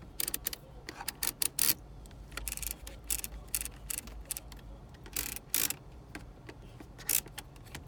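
Clicks from a 2005 Volkswagen Jetta's heater and A/C control as its knobs are turned and its buttons pressed: a run of irregular, sharp clicks over a faint low hum. No blower fan comes on, because the fan does not respond to the control.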